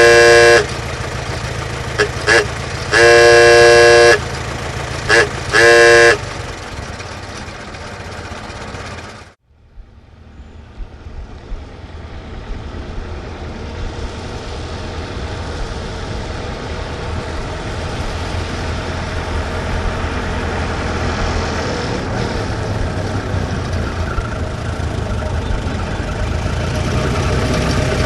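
Old car's horn sounding in a series of toots, some short and two longer blasts, over the steady low running of its engine. About nine seconds in the sound fades out, then engine running noise builds up gradually.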